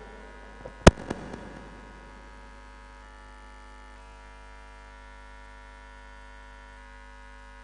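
Steady electrical mains hum from the sound system, with one sharp, loud click about a second in and a few fainter clicks just around it.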